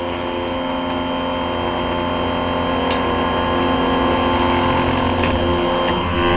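Electric bench chainsaw chain sharpener's motor running steadily, its grinding wheel spinning free between teeth, with a light click about three seconds in.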